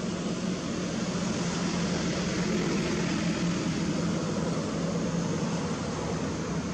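A steady mechanical drone with a low hum, like a distant engine.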